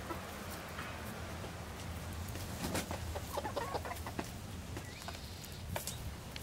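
Domestic hens clucking in short, soft notes, with scattered sharp ticks and a steady low hum underneath.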